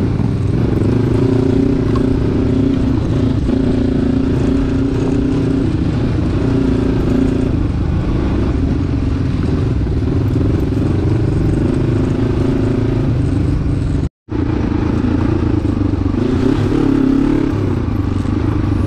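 Kawasaki KLE500 adventure motorcycle's engine running on a dirt trail, its note wavering with the throttle. The sound drops out for a split second about three-quarters of the way through, then carries on.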